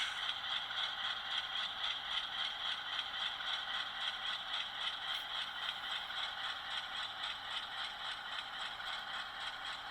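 HO-scale Atlas GE Dash 8-40CW model locomotive running, a steady, fast, even clatter pulsing several times a second. The sound is thin and high, with little low end.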